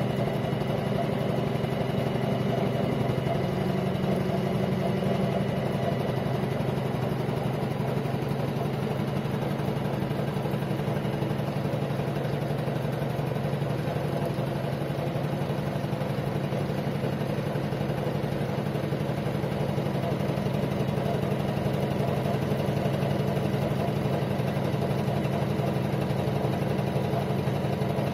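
Usha Janome Memory Craft 450E computerized embroidery machine stitching steadily at about 700 stitches a minute, a fast, even mechanical clatter of the needle.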